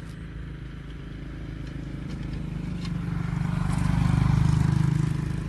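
Large Vietnamese kite flute set (size 110 'train horn' flutes) droning in the wind, a low horn-like hum of several tones together that sounds just like a train horn. It swells to its loudest about four seconds in, then eases.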